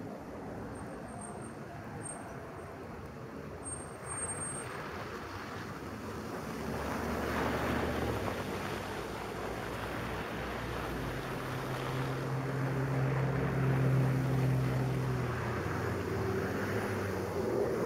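Street traffic on a snow-covered road: the tyre hiss of passing cars swells and fades. From about eleven seconds in, a truck engine's low steady drone grows louder.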